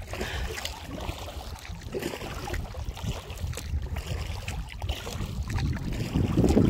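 Wind buffeting the microphone over small waves lapping and splashing against an inflatable kayak's hull as it moves across the sea, getting louder near the end.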